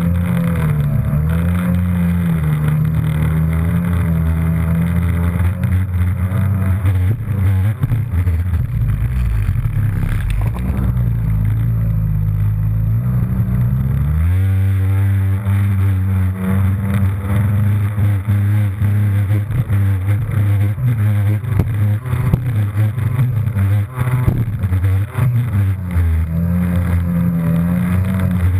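Jet ski engine running at speed across open water, its pitch wavering with the throttle. About halfway through it revs up quickly and holds at a higher pitch as it accelerates.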